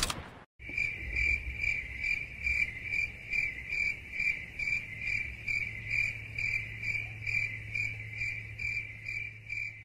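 Crickets chirping in an even pulse of about three chirps a second over a low steady hum. This is the stock 'awkward silence' cricket sound effect.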